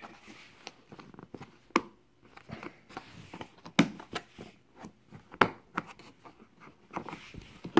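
Handling noises as a tool kit's case is opened: scattered sharp clicks and knocks, the loudest about two, four and five and a half seconds in, with soft rustling between.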